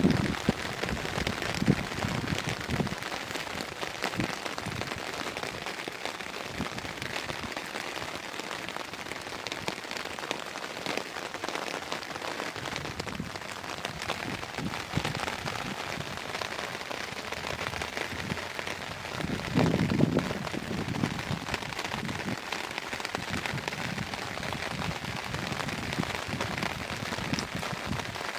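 Steady rain pattering: a dense hiss of many small drop ticks. A brief low rumble swells up about twenty seconds in.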